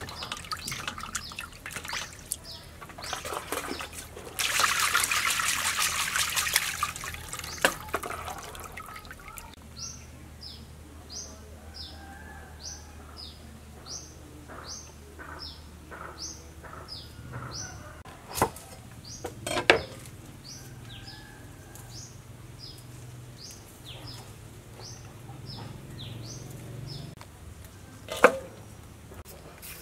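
Water splashing and pouring as chicken giblets are rinsed in a plastic basket in a metal basin of water, loudest a few seconds in. Then a bird repeats a short, high, downward chirp over and over, about one and a half a second, with a few sharp knocks.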